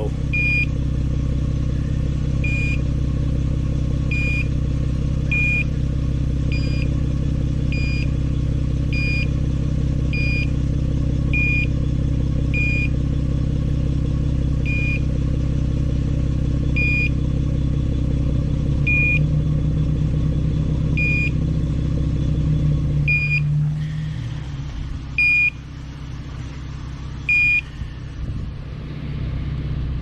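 Car engine idling steadily at the exhaust while a TOPTES CT-580 portable carbon monoxide detector sounds its alarm: short high beeps, about one a second at first, then about one every two seconds, its warning that it is picking up carbon monoxide from the exhaust. About three quarters of the way through the engine sound drops away, and the beeps stop near the end.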